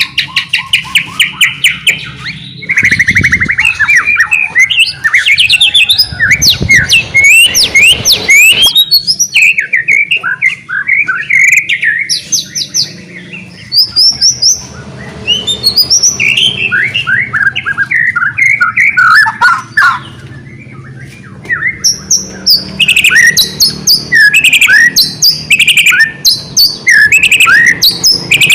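White-rumped shama (murai batu) in full song: a loud, fast, varied stream of rapid repeated notes, trills and gliding whistles, with a couple of brief pauses.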